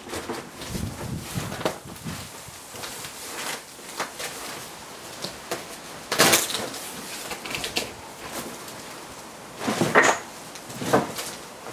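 Irregular knocks, bumps and clatter of parts being handled while a flat-packed staging unit is unboxed and put together, with a few sharper knocks about six and ten seconds in.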